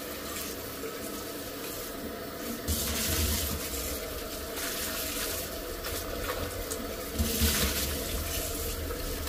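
Water running and splashing in a stainless steel kitchen sink as a stainless steel pot is rinsed under it, swelling louder about three seconds in and again about seven seconds in.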